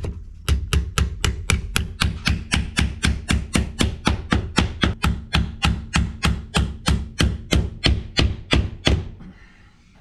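Claw hammer driving finish nails into a wooden window sill: quick, evenly spaced blows, about four a second, that stop about a second before the end.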